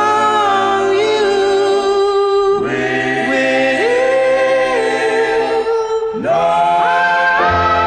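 Music: layered sung vocal harmonies holding long notes, the chord changing about every three seconds.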